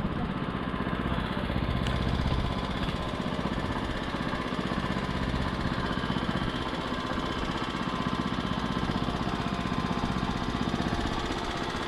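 A small engine running steadily at an even speed, with an unbroken hum and no change in pitch.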